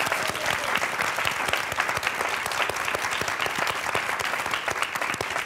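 Studio audience and hosts applauding, many hands clapping steadily at once.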